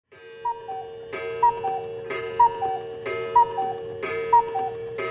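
Ticking-clock sound effect with about one loud tick a second, each tick followed by two short falling notes, over a steady held tone.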